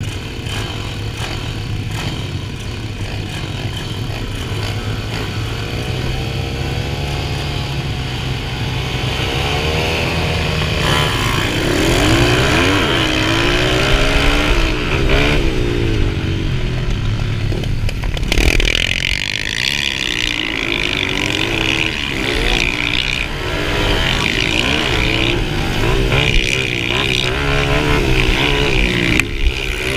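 Mini dirt bike engines heard from on board the rider's own bike. For the first several seconds they run steadily at the start, then from about six seconds in the engine note rises and falls again and again as the bike accelerates away and shifts through the gears down the motocross track.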